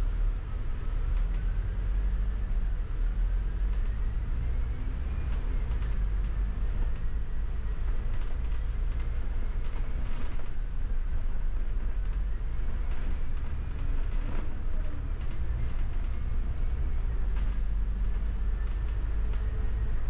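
Double-decker bus under way, heard from its upper deck: a steady low engine rumble, a faint whine that climbs in pitch several times as the bus accelerates, and scattered clicks and rattles.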